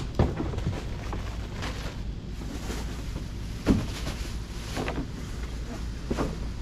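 Wind on the microphone, with a few soft knocks and rustles of a plastic grocery bag and a paper-towel pack being set down on a concrete doorstep; the sharpest knock comes a little past halfway.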